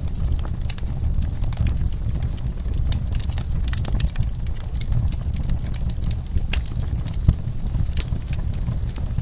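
Fireplace fire crackling: frequent irregular sharp pops and snaps over a steady low rumble of the flames, with one louder pop about seven seconds in.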